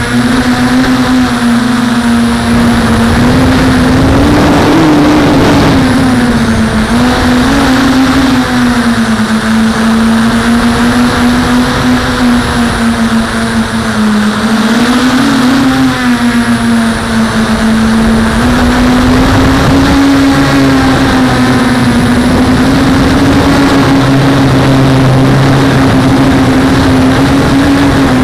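Brushless motors and propellers of an Armattan CF258 FPV quadcopter in flight, heard through its onboard camera: a loud, steady buzzing whine whose pitch wavers up and down with the throttle. A deeper hum joins in near the end.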